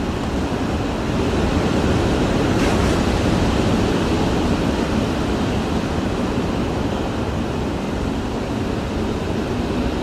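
Hurricane wind heard from inside a house: a loud, steady, deep rushing with gusts, swelling a little about two seconds in.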